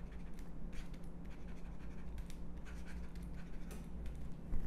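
Stylus scratching across a drawing tablet in short, irregular strokes as words are handwritten.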